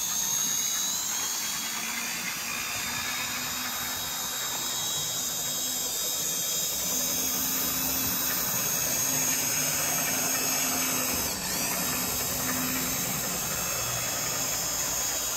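HO-scale 0-6-0 model steam locomotive running on track, its small electric motor making a steady, noisy high whine. The owner puts the noise down to the motor itself.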